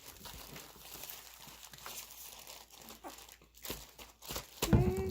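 Plastic bag filled with hand soap crinkling and rustling as it is kneaded and squeezed by hand. A short voice sound cuts in near the end.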